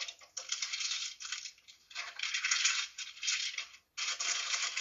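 Irregular bursts of crackly rustling and clattering, heard through a laptop's video-call audio.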